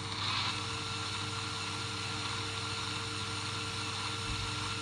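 Simulated excavator engine sound from the LEGO Control+ app, running as a steady hum through the phone's speaker, with a short louder whirr just after the start.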